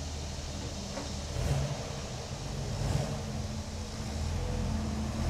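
Rebuilt Chevrolet 235 Stovebolt inline-six, bored to 244 cubic inches with a 264 3/4 race cam, dual carbs and dual exhaust, idling steadily, with small swells in level about a second and a half in and around three seconds.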